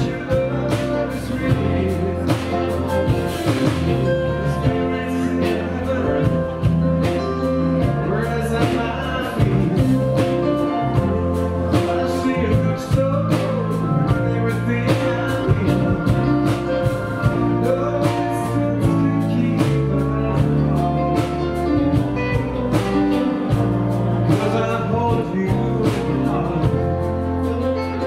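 Live band music: electric guitars, keyboards and drums playing together, with a singing voice.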